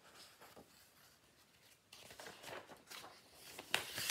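Faint paper rustling as the pages of a picture book are handled, ending in a louder rustle as a page is turned.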